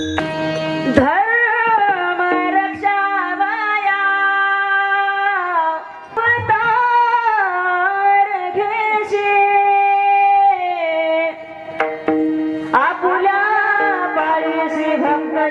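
Devotional kirtan singing: a voice holds long, sliding phrases over steady sustained harmonium notes, with two short breaks between phrases.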